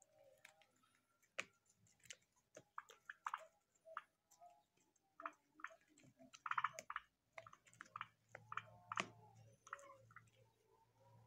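Faint, irregular clicks and ticks of domestic turkeys pecking and tearing at a crate of sprouted wheat grass.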